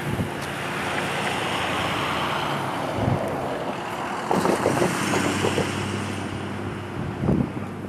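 Freight train of boxcars rolling along the track with a steady low drone, and a few gusts of wind thumping on the camcorder microphone.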